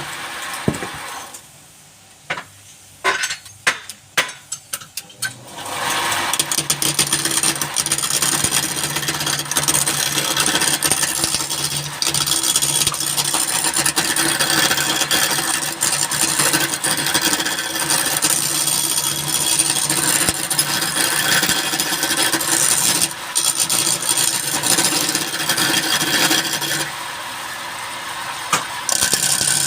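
Woodworking machine running with a steady hum while a tool rasps and scrapes against wood. About a second and a half in it drops away for a few seconds, with several sharp knocks, then starts running and cutting again.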